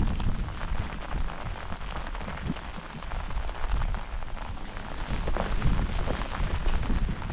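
Rain pattering and spattering steadily, with wind gusting on the microphone as an uneven low rumble.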